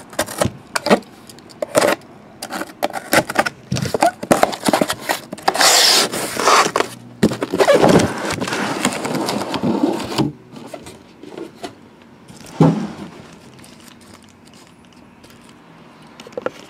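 Cardboard case of boxed trading cards being opened and unpacked by hand: cardboard rubbing and scraping, with scattered knocks and clicks. It is busiest and loudest about five to ten seconds in, then turns to quieter handling with one sharp knock later on.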